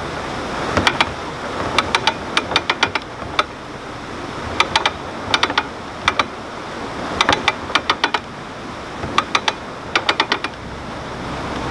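Canal lock paddle gear being wound up with a windlass: the ratchet pawl clicks over the cog teeth in quick runs of several clicks, about one run a second as each turn is made.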